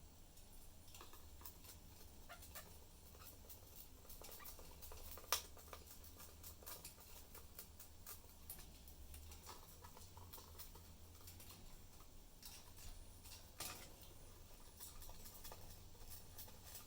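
Faint, scattered clicks and taps of budgies moving about their cage, with a sharper tap about five seconds in and another near the end, over a low steady hum.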